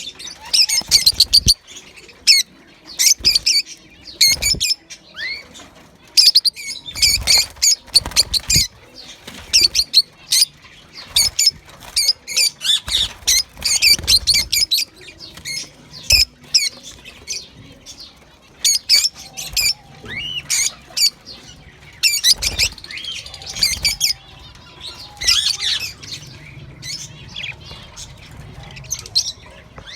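Budgerigars chirping and chattering in quick, dense bursts of high chirps, with a few low thumps among them; the chirping thins out near the end.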